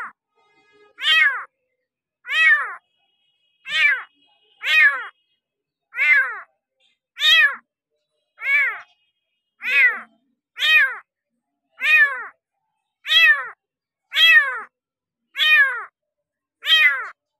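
A young kitten meowing over and over, about fourteen short, high-pitched meows, each rising and falling in pitch, repeated steadily about once a second.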